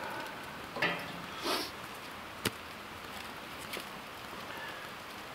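Small wood fire in a stainless steel fire pit burning with a steady hiss, with a single sharp crackle or snap about two and a half seconds in and brief rustles as sticks are handled.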